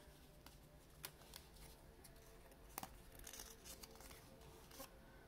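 Faint rustling and crinkling of a small folded paper slip being unfolded by hand, with a few light ticks scattered through it.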